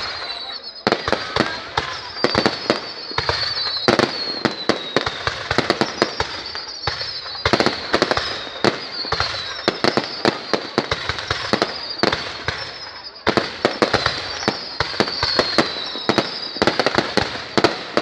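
Fireworks going off: a dense run of sharp crackling pops, with repeated falling whistles about a second long each.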